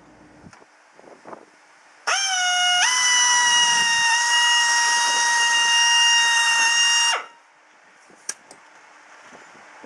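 Power drill motor whining as the trigger is squeezed: it starts about two seconds in, jumps higher in pitch as the trigger goes further, runs steadily for about five seconds, then winds down and stops. A single sharp click follows about a second later.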